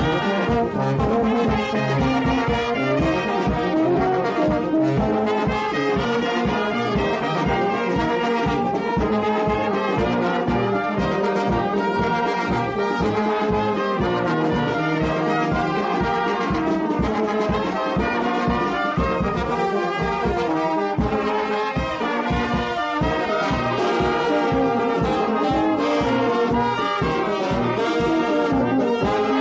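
Brass band playing: trumpets and trombones carry melodies over a steady, regular beat.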